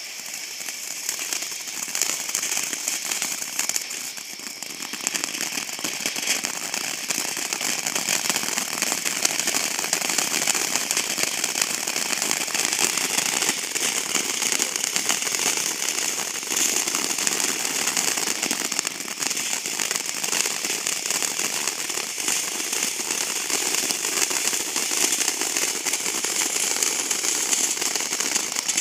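Ground fountain firework spraying sparks from its tube, a steady dense crackling hiss.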